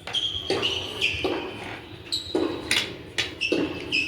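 Close-miked eating: irregular chewing and mouth sounds as a person starts on a plate of chicken fried rice. A thin, high, steady tone shifts pitch a few times behind them.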